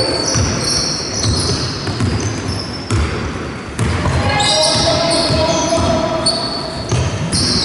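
Basketball game on a wooden sports-hall floor: the ball bouncing, with many short high squeaks from shoes on the court and a couple of sharp knocks about three and four seconds in.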